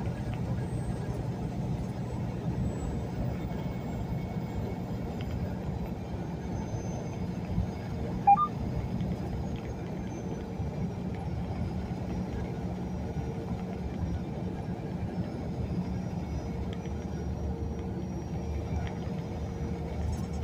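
Steady engine and road rumble inside a semi-truck's cab while it cruises at highway speed, with one brief sharp chirp about eight seconds in.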